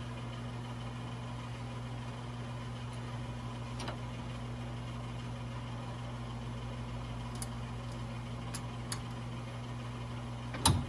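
Small metal clicks as a ring clip is worked onto the end of a lawn tractor's brake rod: a few faint ones, then a sharper one near the end. A steady low hum runs underneath.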